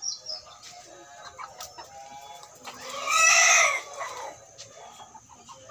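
Indonesian native (kampung) chickens clucking softly, with one loud call of about a second from a chicken about three seconds in.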